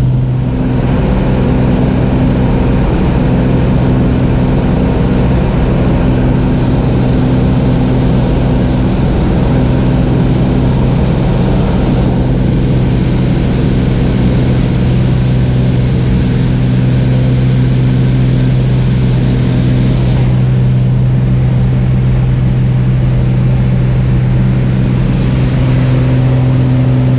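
Piston engine and propeller of a single-engine light aircraft at full takeoff power, heard from inside the cabin. It is a loud, steady drone with rushing air through the takeoff roll and climb-out.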